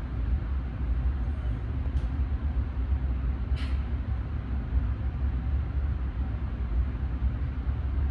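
Steady low rumble of background noise, with two faint clicks about two and three and a half seconds in.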